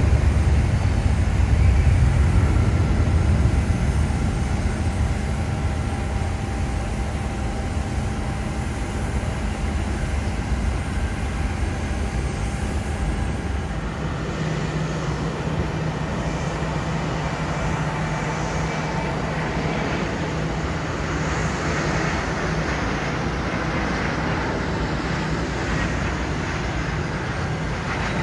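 Jet airliner engines: a deep rumble that fades over the first half, then a steadier low hum with a faint whine and a hiss that swells about two-thirds of the way in.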